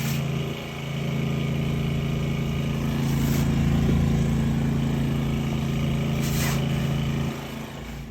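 Sewer water jetter's engine and pump running steadily while power-jetting a grease-clogged sewer line, dropping in level near the end.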